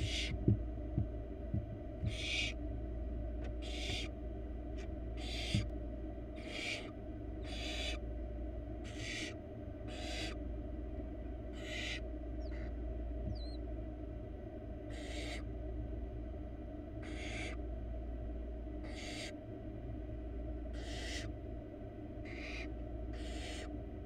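Barn owl nestlings giving repeated hissing, snore-like calls, typical of their food-begging, about one every second or two. A steady low hum runs underneath, and a few sharp knocks come in the first few seconds.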